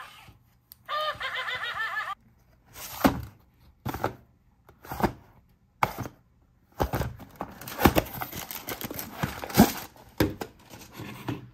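A talking toy's recorded voice sounds briefly, then toy packaging is handled, with irregular knocks and rubbing over several seconds.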